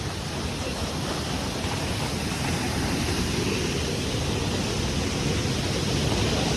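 Waterfall rushing steadily: a dense, even hiss of falling water.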